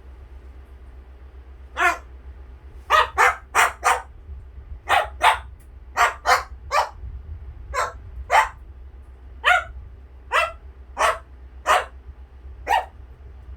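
A pet parrot imitating a dog's barking: a series of about seventeen short barks, starting about two seconds in, some coming in quick runs of two or three.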